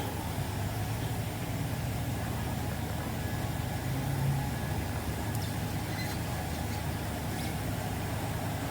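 Steady low machine hum, like a motor or engine running, with a few faint light clicks.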